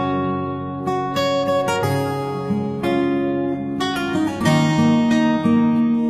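Background music on acoustic guitar, plucked and strummed notes changing every second or so.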